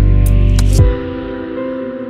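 Background music: soft, calm instrumental with held notes, a deep bass part that drops out about a second in.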